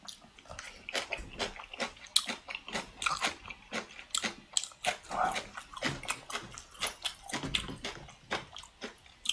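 Kimchi being chewed: wet, crunchy chewing and mouth smacks, a quick irregular series of sharp clicks.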